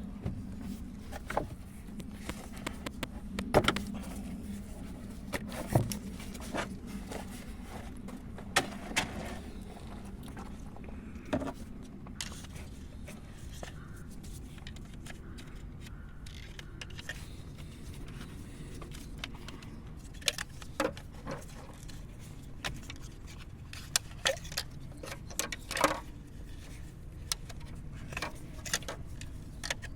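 Irregular light metallic clinks and rattles, like tools and small metal parts being handled, over a steady low hum.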